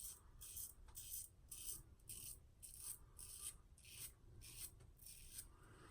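Merkur Long Handle double-edge safety razor with a Gillette Wilkinson Sword blade scraping through stubble under thick lather: a run of short, faint rasping strokes, about three a second.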